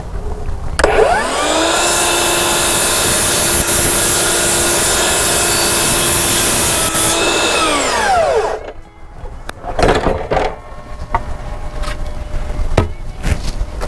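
Electric power saw spinning up, running steadily for about six seconds while cutting a wooden board, then winding down. Scattered knocks and clatter from the board being handled follow.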